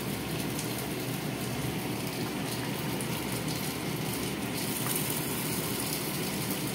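Vegetable broth at a rolling boil in a pot on a gas burner: a steady bubbling hiss.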